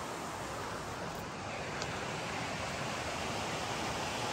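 Steady rush of a river's flowing water, getting slightly louder from about the middle on.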